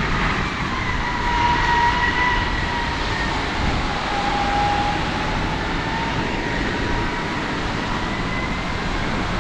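Strong wind blowing over the microphone, with a faint steady whistling tone that sags a little in pitch midway and then recovers.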